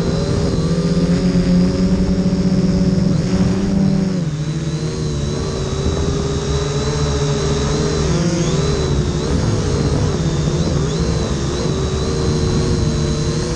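Huanqi H899b quadcopter's electric motors and propellers whining, picked up by the GoPro mounted on the airframe. Several tones run together and waver in pitch as the drone manoeuvres, stepping down about four seconds in and dipping again around eight seconds.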